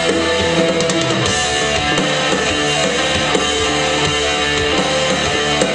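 Live heavy rock band playing an instrumental passage: distorted electric guitar with bent notes over drums and bass.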